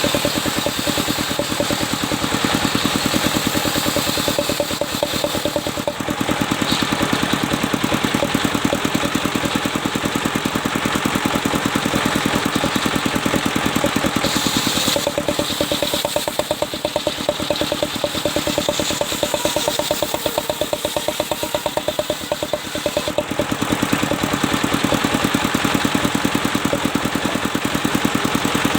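Engine of a circular-saw sawmill running steadily with an even firing rhythm, easing off a little for several seconds around the middle.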